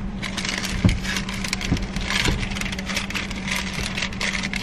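Idling car engine inside the cabin, a steady low hum, under rustling and small clicks of things being handled in the driver's seat, with one sharper thump about a second in.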